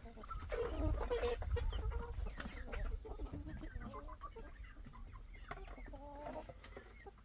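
Chickens clucking, many short calls overlapping, busiest in the first couple of seconds and thinning out toward the end.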